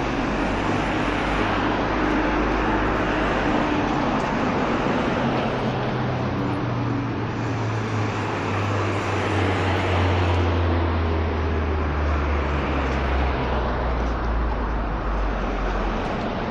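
Busy city street traffic: steady road noise with the low hum of a heavy vehicle's engine that drops in pitch over several seconds in the middle.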